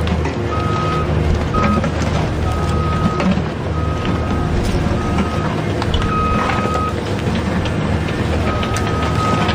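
Toy construction-vehicle sound effects: a steady low engine hum with a high electronic beep that sounds again and again at uneven intervals.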